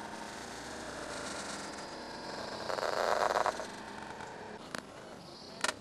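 Needle and thread pulled through cloth in hand stitching: a short rasp about three seconds in, then two faint clicks near the end, over a steady hiss.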